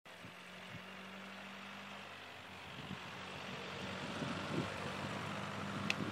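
A car approaching along the road, its engine and tyre noise growing steadily louder as it draws near. A short sharp click comes near the end.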